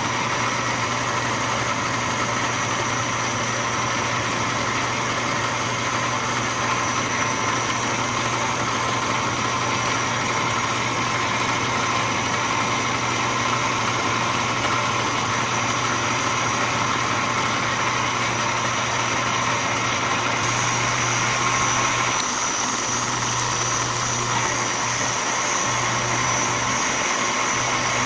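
Metal lathe running steadily under power, its motor and belt drive giving a constant hum with a high whine, while a threading pass is cut on a steel drill-rod screw. The high whine grows louder about two-thirds of the way through.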